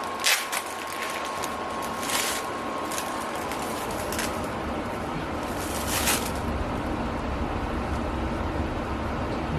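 Plant packaging being handled and unwrapped: a few short crinkling rustles of wrapping, about a second in, a couple of seconds in and again about six seconds in, over a steady low rumble.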